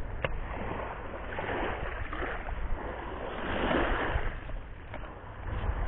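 Sea waves washing on the shore, swelling and ebbing, with wind on the microphone. A short click comes just after the start.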